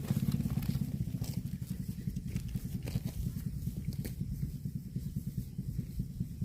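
A small engine running steadily, with a few faint crackles over it.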